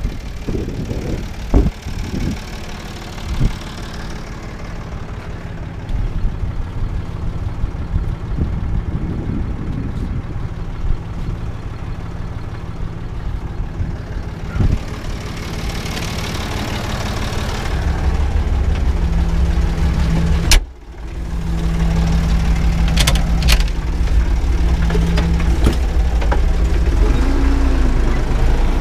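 Erkunt tractor's diesel engine idling steadily, the low rumble growing stronger about two-thirds of the way through, with one sharp knock just after that.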